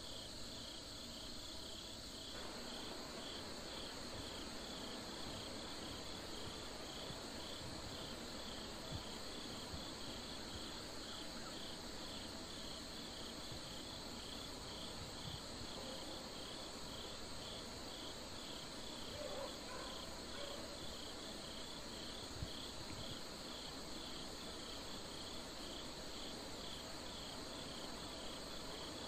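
Insects chirping in the pasture grass: a steady high trill with a short chirp repeating evenly about twice a second.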